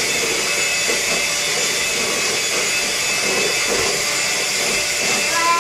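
Handheld electric mixer running steadily, its beaters whirring through cake batter in a stainless steel bowl.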